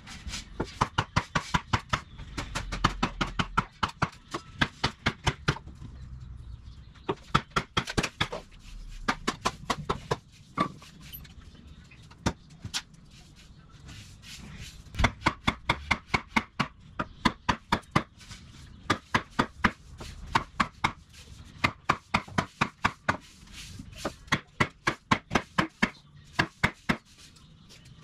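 Wooden baton pounding on the spine of a Dark Timber Devil's Horn camp knife, driving it through a log: rapid, even knocks about four a second, with a couple of short breaks.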